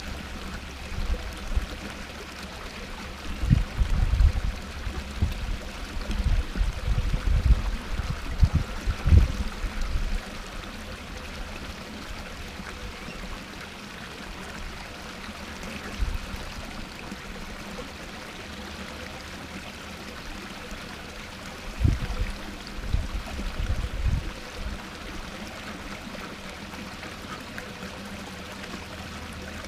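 Small garden waterfall spilling over rocks into a pond, a steady splashing trickle. Bursts of low rumbling come and go a few seconds in and again past twenty seconds.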